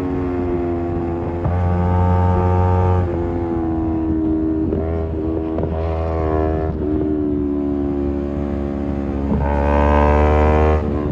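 Kawasaki Z250 engine through an aftermarket SeaPro muffler, its exhaust note rising and falling as the throttle is rolled on and off through corners. Near the end it climbs hard under throttle, then cuts off suddenly.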